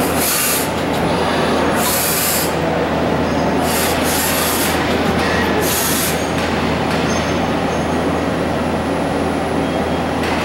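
Okuma 2SP-V40 vertical twin-spindle CNC lathe running and machining, with a steady low hum under loud mechanical noise. Short hissing bursts come about every two seconds during the first half.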